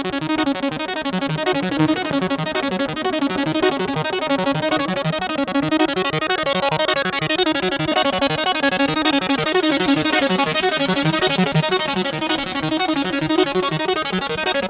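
A fast, steady run of repeating synth-like notes played through an EarthQuaker Devices Pyramids flanger pedal. The flanging sweeps slowly up and down, repeating every few seconds.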